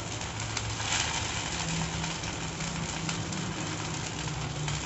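Small corn-and-wheat dough patties frying in a little olive oil on a tava over a low flame, a steady sizzling hiss. A low steady hum comes in underneath about a second and a half in.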